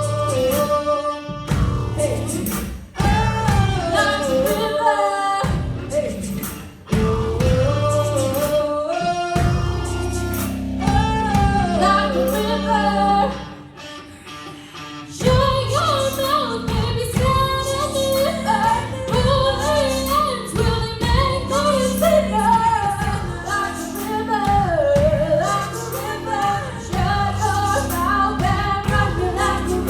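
A woman sings a melody over instrumental accompaniment with a steady beat. The music drops back briefly about halfway through, then comes back in full.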